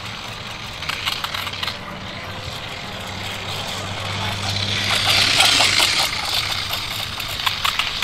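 Remote-control toy dirt bike's small electric motor running as it rides, getting louder for a moment about five seconds in.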